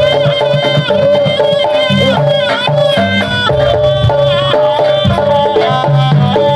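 Jaranan accompaniment music: drums under a wavering melodic lead over one steady held note.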